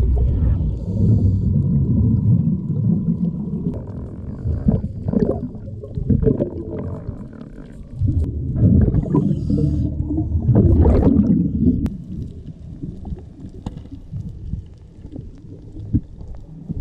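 Muffled underwater sound heard through a submerged camera housing: a low rumbling water noise that swells and fades several times, with a faint steady tone in the first few seconds.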